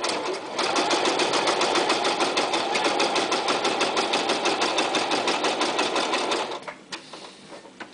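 Toyota Super Jeans J34 sewing machine running steadily through six layers of marine vinyl with its regular metal presser foot, the needle stroking in a fast, even rhythm. It starts about half a second in and stops about six and a half seconds in. This is the metal foot's test on vinyl, where the foot drags and the stitches come out very short.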